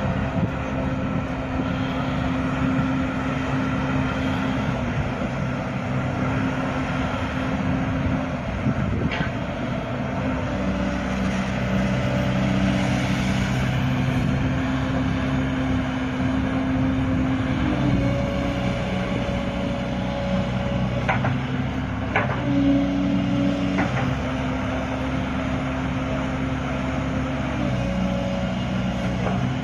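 Komatsu PC130 13-ton excavator's diesel engine running under hydraulic load, its tone stepping up and down several times as the boom and arm are worked. A few sharp clanks come through partway in.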